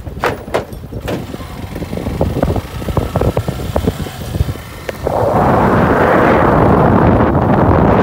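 Riding on a motorcycle: a low rumble with scattered knocks and rattles, then about five seconds in, loud wind buffeting the microphone takes over.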